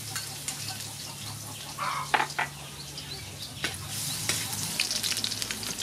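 Chopped garlic sizzling in hot oil in a metal wok, with a metal spatula scraping and tapping against the pan as it is stirred.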